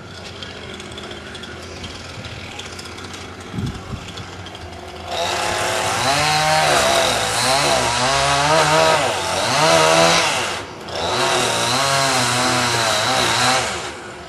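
Chainsaw cutting into a wooden barn post. It comes in about five seconds in, its engine pitch rising and falling as it bogs under load and picks up again. It eases off briefly, then cuts again and stops just before the end.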